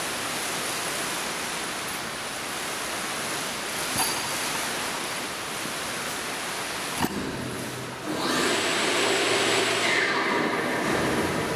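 Steady hiss of workshop room noise, with two short clicks and a louder stretch with a faint hum from about eight seconds in.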